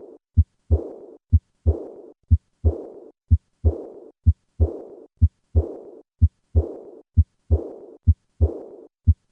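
Heart sounds at about one beat a second, each beat two short low thumps, the second followed by a high-pitched blowing murmur that fades away: the diastolic decrescendo murmur of aortic regurgitation.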